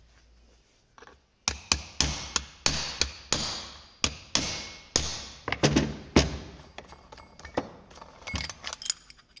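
Hammer blows on a punch against the clutch of a Husqvarna 136 chainsaw, driving it round to loosen it with the piston locked: a run of some twenty sharp metallic strikes in uneven groups, each ringing briefly.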